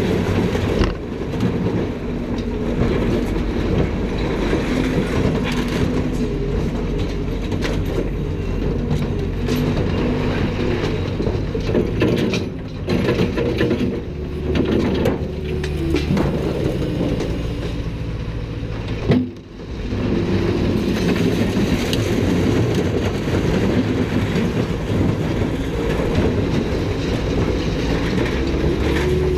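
Steady low rumble of heavy diesel machinery working a scrap yard, with occasional clanks of scrap metal being unloaded.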